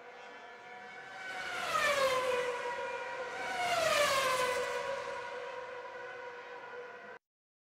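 A siren-like wailing tone that swells twice, sliding down in pitch each time over a steady held note, then cuts off suddenly near the end.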